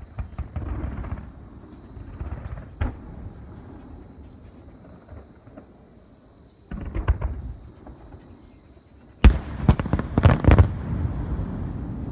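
Fireworks exploding: a few scattered booms, then a cluster of bangs about seven seconds in and the loudest run of sharp bangs about nine to ten and a half seconds in. Each is followed by a long, deep, rumbling echo.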